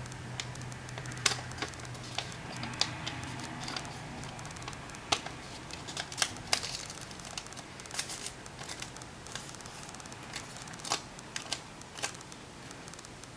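Origami paper being folded by hand: irregular crisp crinkles and sharp snaps of the paper as creases are pressed and flaps are lifted and flattened.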